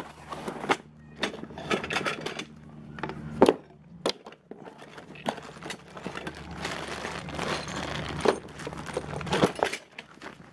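Irregular knocks, clinks and rustling as metal parts and packaging of a chainsaw attachment are handled, with a faint steady low hum underneath.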